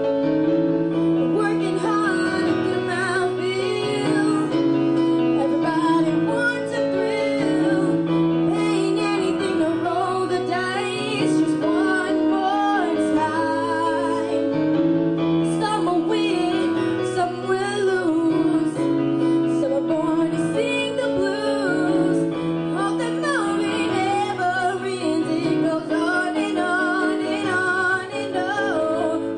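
A girl singing a song into a microphone over a piano accompaniment, her voice coming in about a second in after the piano alone.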